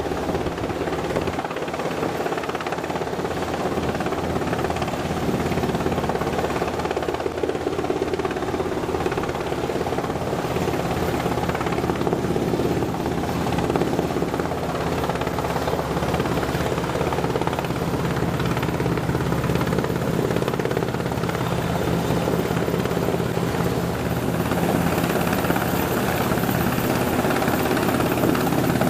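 Sikorsky S-92 search-and-rescue helicopter hovering, its four-bladed main rotor and twin turboshaft engines running steadily, growing slightly louder near the end.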